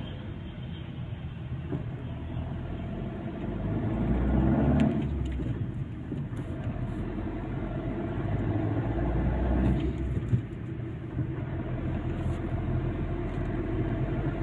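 Fiat Egea's 1.3 Multijet diesel engine pulling at low revs, heard from inside the car, swelling louder twice as it accelerates. Under it is a faint injector chatter, which the mechanic puts down to a faulty injector spraying too much fuel onto the piston crown.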